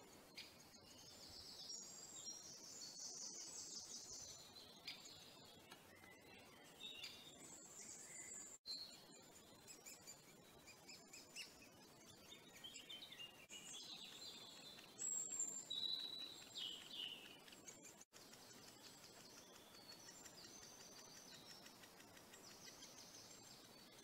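Great spotted woodpecker nestlings begging from the nest hole: faint, high-pitched chirps and rapid chattering calls, loudest about two-thirds of the way through.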